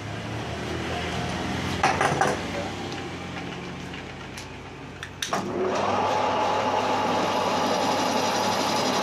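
Metal lathe: a few metallic clinks as the chuck is handled, then a little over five seconds in the spindle engages with a clunk and spins up within half a second to a steady running whine as the three-jaw chuck turns.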